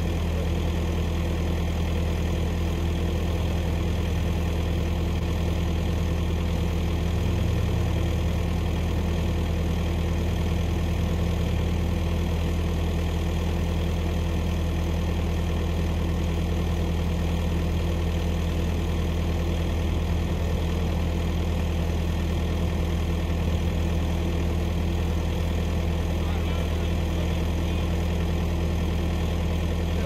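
John Deere 325G compact track loader's diesel engine running steadily with an even, deep hum.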